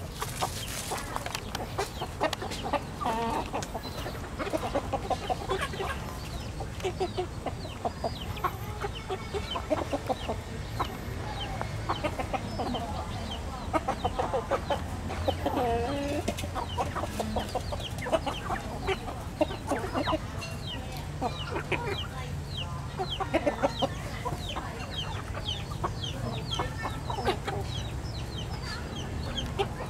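A flock of chickens clucking as they forage and peck on bare ground, with many short calls overlapping throughout.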